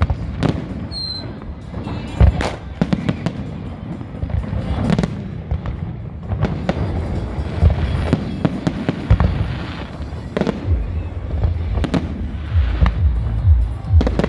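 Aerial fireworks display: shells bursting in quick, irregular bangs with crackling over a steady low rumble. The sharpest bang comes about two seconds in, and the bangs come thicker near the end.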